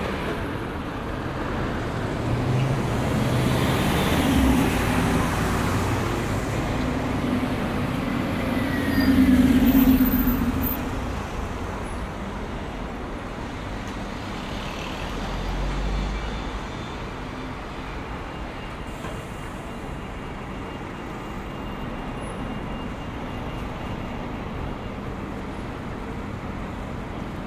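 Street traffic with a heavy vehicle's engine passing close by. It builds over the first few seconds, is loudest about nine to ten seconds in, then fades to a steady hum of traffic with a smaller swell a few seconds later.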